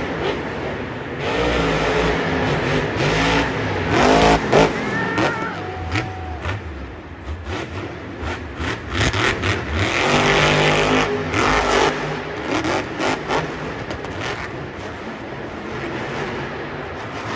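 Jurassic Attack monster truck's supercharged V8 engine revving hard and dropping back again and again through a freestyle run, loudest about four seconds in and again around ten seconds in.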